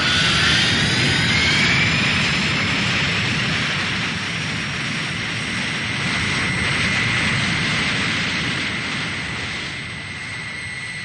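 Science-fiction spacecraft engine sound effect: a loud jet-like rushing noise with whistling tones gliding upward over the first two seconds, settling into a steady high whine, then slowly fading near the end.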